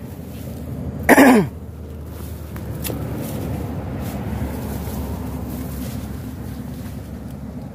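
A man coughs or clears his throat once, about a second in: a short sound that drops sharply in pitch. A steady low rumble runs underneath.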